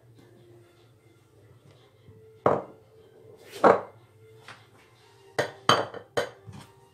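Spatula knocking against a bowl and dish while whipped cream is scooped onto a cake: two sharp clatters about a second apart, then three quicker ones near the end, over a faint low hum.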